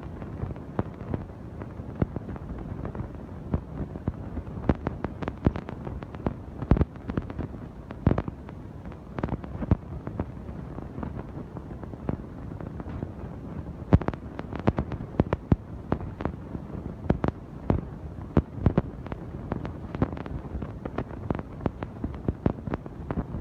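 Irregular sharp knocks and clicks, sometimes several in quick succession, over a steady low rumble.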